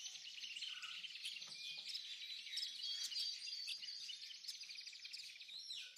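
Many small birds chirping and trilling at once, a dense, faint chorus of overlapping high calls.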